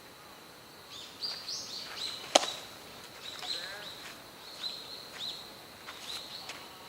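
Small birds chirping in short, high, repeated calls, with one sharp crack about two and a half seconds in.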